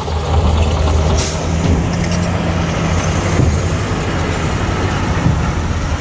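Diesel engine of a heavy earthmoving machine running steadily, with a short hiss about a second in.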